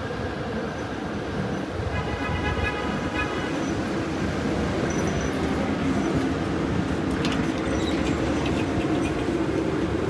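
Heritage PCC streetcar pulling into a stop: a steady low rumble from the car, a brief high squeal about two seconds in as it slows, and scattered sharp clicks and knocks near the end as it stands at the platform for boarding.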